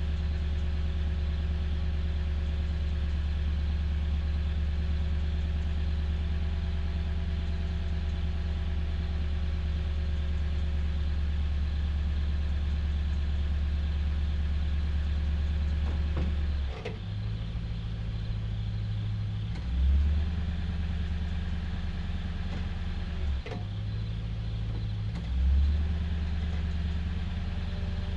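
2008 Toyota Tundra pickup's engine idling with a steady low hum. About 17 seconds in the hum shifts pitch, and two brief louder low swells follow, a few seconds apart.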